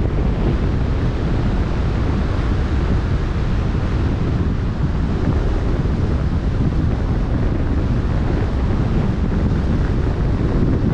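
Steady wind noise on the microphone over the wash of waves on open sea.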